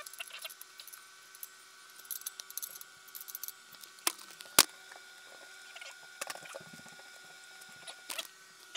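Steel tube sections and plastic parts of a sit-up bench being handled and fitted during assembly: scattered clicks, taps and rustles, with one sharp click about four and a half seconds in, the loudest.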